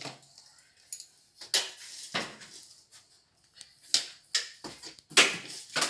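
Hard plastic parts of a portable embroidery machine being handled: irregular sharp knocks and clatters, about seven of them, the loudest about five seconds in.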